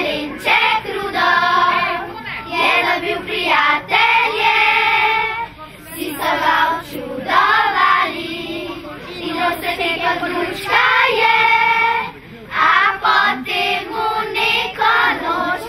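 A group of young children singing a song together, phrase by phrase, with brief pauses between the phrases.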